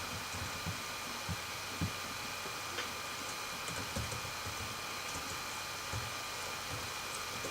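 Steady background hiss and electrical hum with a few faint steady tones, and soft low thumps scattered irregularly through it.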